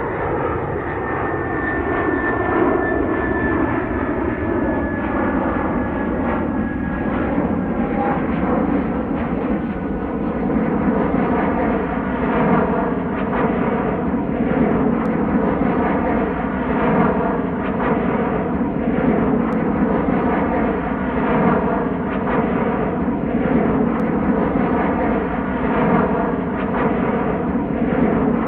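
Jet airliner cruising high overhead: a steady, distant rushing roar with a slowly shifting, phasing quality.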